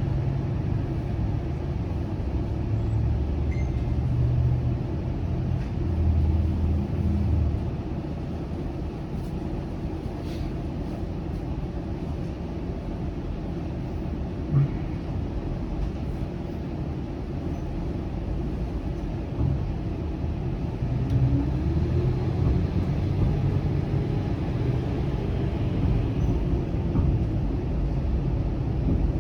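Bombardier Flexity Outlook low-floor streetcar running, heard from inside: a steady low rumble of wheels and drive, swelling at times, with one sharp knock about halfway through.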